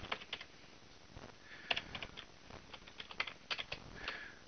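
Computer keyboard typing: irregular runs of key clicks, with a short pause about half a second in.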